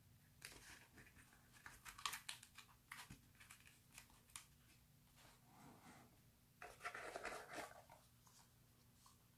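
Faint rustling and crinkling of unboxing packaging being handled, with small clicks, in two spells: a longer one in the first half and a shorter one near seven seconds.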